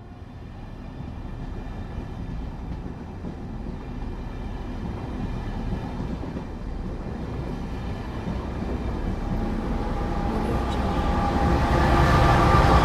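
A train approaching, its rumble growing steadily louder, with thin high tones from the train coming in near the end.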